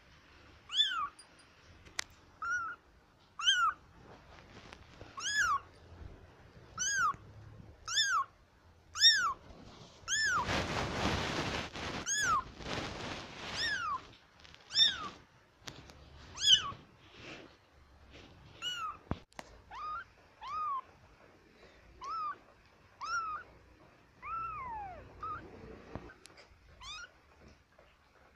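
Very young kittens mewing: short, high-pitched, rising-and-falling mews repeated about once a second. A few seconds of rustling noise run under the mews in the middle.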